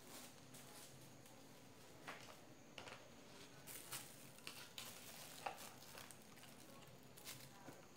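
Faint handling noise: a few soft clicks and taps with light plastic rustling as small plastic freezer-pop bags and a plastic funnel are handled at a countertop. The sharpest tap comes about five and a half seconds in.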